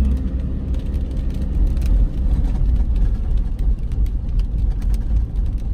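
Car driving on a wet road, heard from inside the cabin: a steady low rumble of road and engine noise, with scattered light taps of rain on the windscreen.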